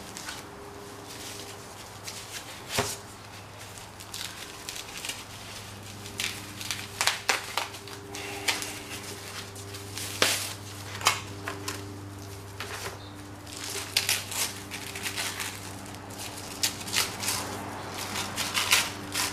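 Paper sheets and plastic wrapping rustling and crinkling in a cardboard box as parts are unpacked, in short scattered crackles, over a steady low hum.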